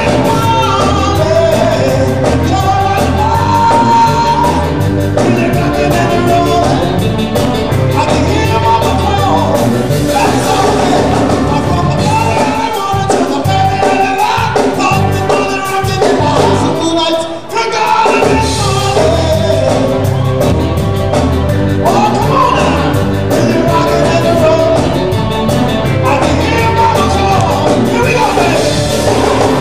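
Rock and roll song with a lead singer over a band with drums and a steady beat, dipping briefly about seventeen seconds in.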